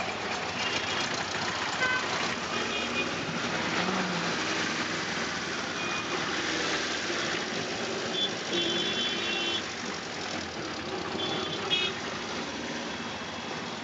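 Auto rickshaw's small engine running as it moves through city traffic, heard from inside its open cab, with vehicle horns honking several times, the longest for about a second just past the middle.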